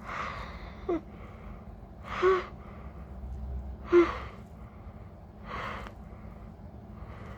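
A woman's catching, partly voiced gasps, four of them about every one and a half to two seconds, the one about four seconds in the loudest and sharpest: the build-up of a sneeze that has not yet come.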